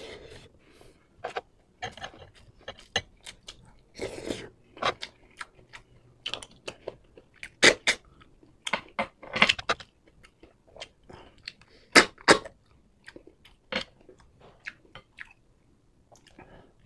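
A man chewing a mouthful of rice and bamboo shoots in coconut milk close to the microphone: irregular wet mouth clicks and smacks with occasional crunches.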